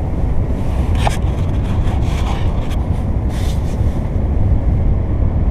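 Steady low road and tyre rumble heard from the back seat of a 1997 Toyota Camry under way, with no growl from the freshly replaced right rear wheel bearing. A brief tick sounds about a second in.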